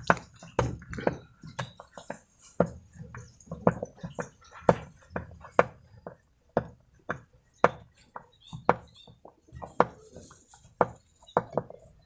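Irregular sharp clicks and knocks of a screwdriver working on the centre screw of a top-loading washing machine's pulsator, undoing the screw before the pulsator is lifted out.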